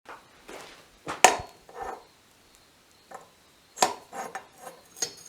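A run of sharp, irregular knocks and clatters of hard objects being handled, the loudest about a second in and another near four seconds in.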